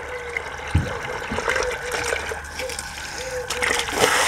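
Water from a garden hose pouring and splashing into a nearly full plastic basin, a steady trickling rush. Near the end it turns briefly louder and hissier as the hose is moved.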